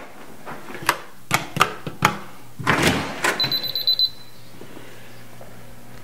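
A door's latch and handle click and knock a few times and the door is pushed open. About three and a half seconds in comes a brief, rapid run of high electronic beeps.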